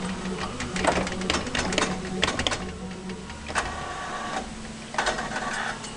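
Claw machine in play: the gantry motor hums steadily while the claw travels, drops and grabs a plush, with scattered clicks and rattles from the claw mechanism. The hum weakens in the second half.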